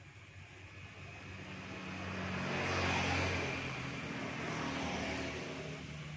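A motor vehicle passing by, its engine and road noise swelling to a peak about three seconds in and then fading.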